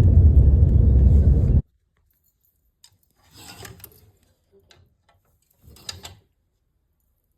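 Loud low rumble of a vehicle in motion, cut off abruptly about a second and a half in. It is followed by near quiet with a few soft rustling, scraping sounds, two of them at about three and a half and six seconds in.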